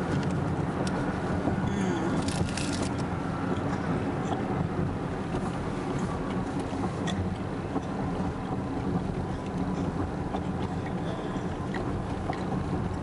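Steady rumble of a moving car's engine and road noise inside the cabin, with a bite into a sandwich and chewing close to the microphone.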